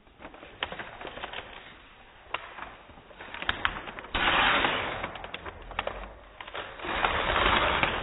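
Shiny gift-wrapping paper crinkling and being torn off a box by hand, with crackling throughout and two longer, louder rips, one starting suddenly about four seconds in and one about seven seconds in.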